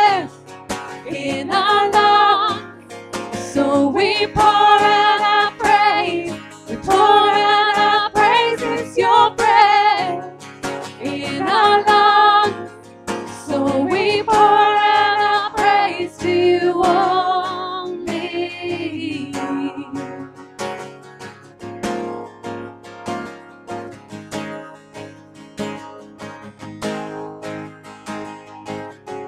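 Two women singing a worship chorus over a strummed acoustic guitar. About two-thirds of the way through, the voices stop and the guitar carries on strumming alone.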